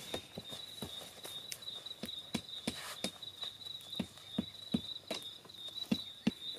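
Crickets trilling steadily at a high pitch, with sharp, irregular crackles and snaps from a campfire of dry branches.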